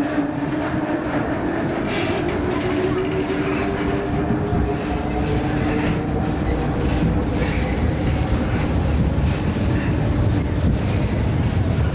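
Amusement ride's drive machinery running under a low rumble of the moving cars, with a whine that slowly rises in pitch as the ride speeds up.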